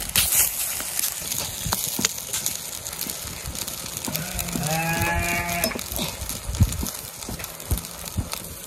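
A farm animal calls once, a drawn-out call of just over a second about halfway through, amid scattered small clicks and taps.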